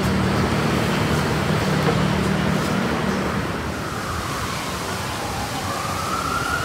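Low traffic rumble, then a siren wailing with a slow rise in pitch from about halfway through.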